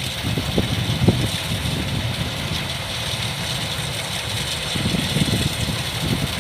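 Kubota DC-105X combine harvester's diesel engine running steadily, with a constant high hiss over the low engine sound.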